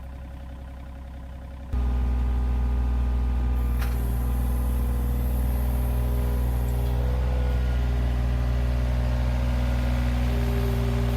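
John Deere 35G compact excavator's diesel engine idling, then throttled up sharply about two seconds in and running steadily at working speed, its note shifting a little as the controls are worked. It is the start of an attempt to crawl the machine along on one track, with the boom propping it up.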